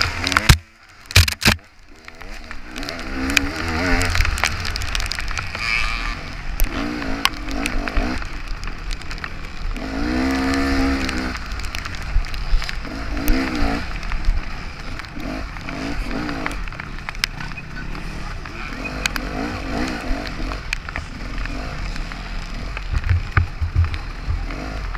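Honda XR400 dirt bike's single-cylinder four-stroke engine revving up and down under racing load, its pitch repeatedly rising and falling through the gears, with steady wind noise on the microphone. A couple of loud sharp knocks about a second in.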